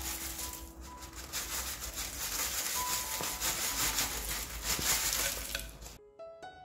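Crisp fried sea mustard pieces pouring into a wooden bowl: a dense dry crackle and patter of brittle pieces landing on one another. Soft music plays faintly underneath, and about six seconds in the crackle cuts off and piano music takes over.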